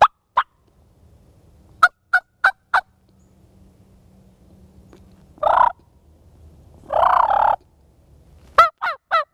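Wild turkey calling: short, sharp yelping notes in quick runs of two and four, with a rattling gobble about five and a half seconds in and a longer one about seven seconds in.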